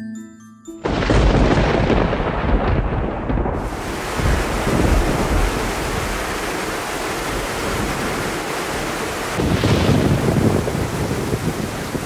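Heavy tropical downpour with rumbling thunder. It cuts in suddenly about a second in, after a few notes of light mallet music, and swells with a second roll of thunder near the end.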